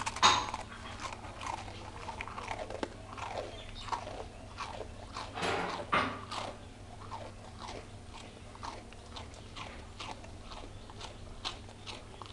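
A dog crunching and chewing a biscuit: a run of short, crisp crunches, thick in the first half and thinning out toward the end.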